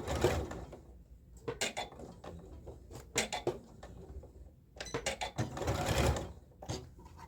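Domestic sewing machine stitching in two short runs, with sharp clicks and rustling from handling the fabric and machine between them.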